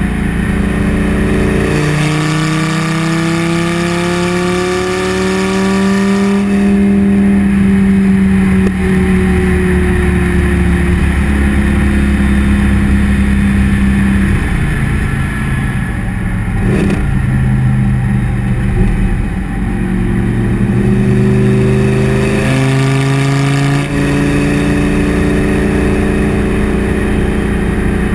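Lamborghini Gallardo LP 570-4 Superleggera's 5.2-litre V10 exhaust, recorded right at the tailpipe while driving. The engine note climbs under acceleration in the first few seconds, holds steady, drops about halfway through, and climbs again near the end.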